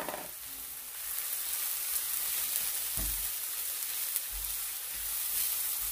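Chopped onions and freshly added crushed spices sizzling in oil in a frying pan. A steady frying hiss that gets a little louder about a second in, with a dull knock about three seconds in.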